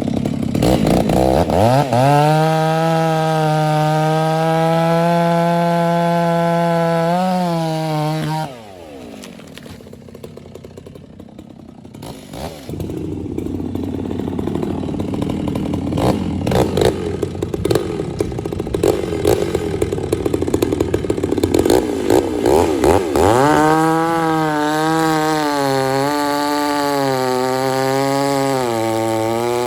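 Chainsaw revving up and held at high revs, then dropping back toward idle about eight seconds in. A stretch of crackling and knocking follows. Near the end the saw revs up again, its pitch wavering as it runs.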